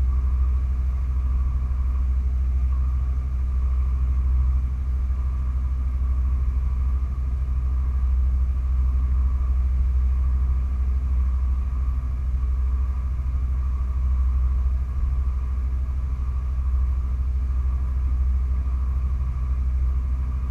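Motor yacht's engines running steadily underway, a constant low rumble.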